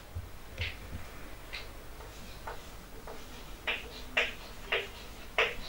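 Writing on a board: a string of short, irregular taps and clicks as the writing tool strikes the surface, fainter at first and sharper and closer together from about three and a half seconds in.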